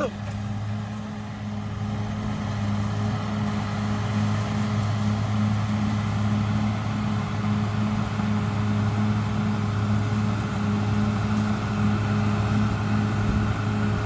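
CAT D6R XL bulldozer's diesel engine running at a steady pitch while the dozer pushes a load of earth with its blade: a constant low drone.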